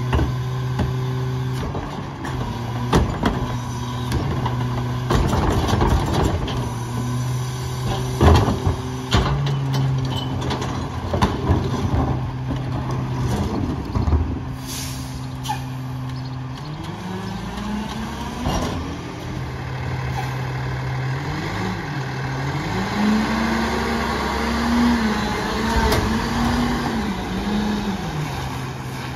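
Diesel engine of a Freightliner/McNeilus rear-loader garbage truck running steadily while recycling carts are tipped into the hopper, with repeated bangs and thumps from the carts and cardboard. About halfway there is a short hiss of air, then the engine's revs rise and fall as the truck moves off.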